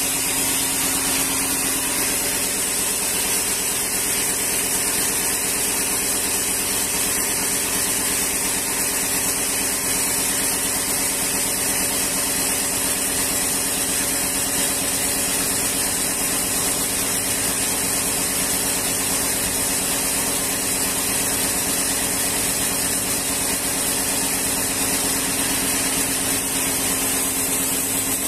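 Band sawmill running steadily, its motor and band blade giving a constant mechanical drone with a high hiss.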